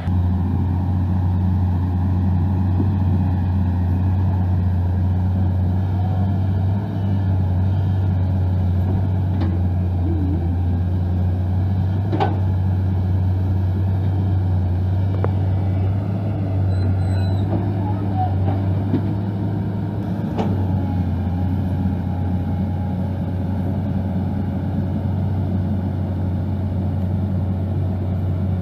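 A heavy vehicle's engine running steadily with a constant low drone. A couple of sharp knocks come through it, about twelve and twenty seconds in.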